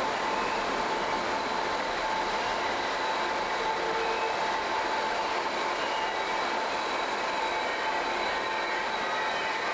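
Passenger train running steadily through a station, heard from inside the carriage: an even rumble with a steady whine, and faint higher squealing tones joining in about halfway through.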